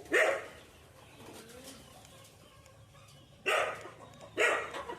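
A dog barking three times: once at the start, then two more barks about a second apart near the end.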